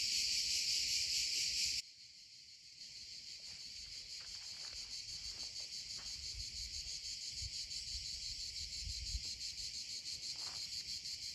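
Cicadas calling: a dense, high, fast-pulsing buzz. It drops away abruptly about two seconds in, then swells back gradually.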